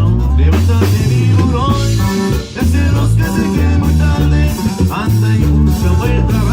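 Live band music: a pulsing bass line and drums under a guitar-led melody.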